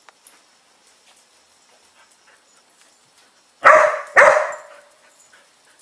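A dog barks twice in quick succession, about half a second apart, partway through, each bark echoing off the garage walls.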